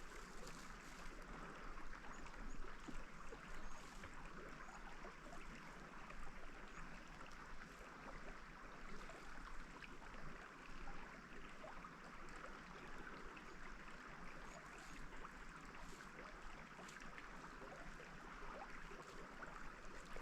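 Faint, steady trickle and gurgle of a small, shallow creek, with a few light clicks and rustles.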